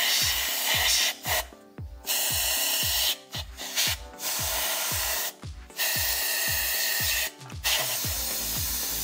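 Compressed air hissing from an air blow gun into the engine's spark plug wells in about seven bursts of a second or so each, with short breaks between, blowing out water and debris so it doesn't fall into the cylinders. Background music with a steady beat underneath.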